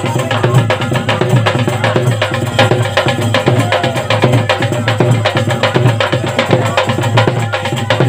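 Folk percussion ensemble playing: fast, dense drum and clattering stick strokes without a break, over a steady low hum.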